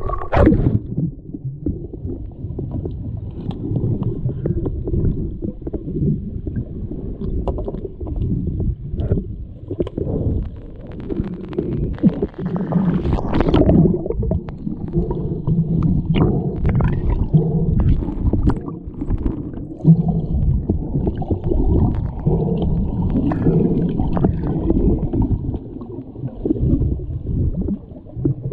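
Muffled underwater sound of an underwater hockey game: a constant rumble of churning water and bubbles, with scattered sharp clicks.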